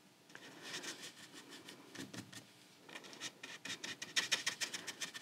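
A flat paintbrush loaded with acrylic paint scratching across textured canvas in short, repeated strokes. There is a brief lull a little before the middle, then quicker strokes, several a second.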